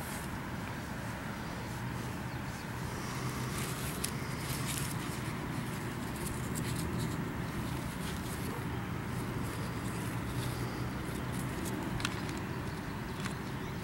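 Steady low rumble with scattered faint rustles and clicks.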